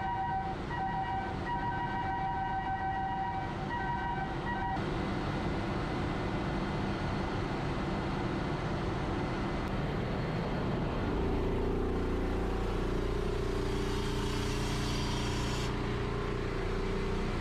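Ship's engine-room machinery running with a loud, steady drone. For the first five seconds a high multi-note tone sounds on and off over it, then stops. From about eleven seconds in, a deeper steady hum with lower tones joins the drone.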